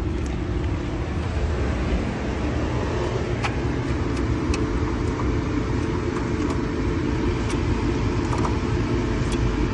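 Vehicle engine idling steadily with a constant low hum, and a scattering of light, sharp clicks over it.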